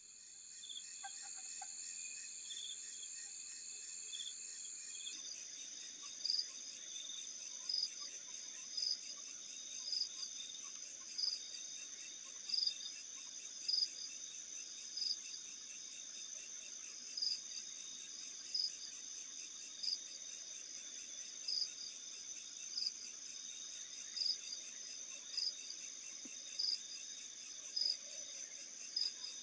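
Night chorus of crickets: a steady high trilling, with one louder chirp repeating a little under once a second. The chorus changes abruptly about five seconds in.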